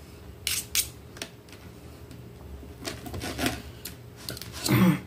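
Table knife sawing through fried beef and scraping across a plastic plate, with a fork holding the meat: short, sharp scrapes about half a second to a second in, a run of them around three seconds, and a louder one near the end.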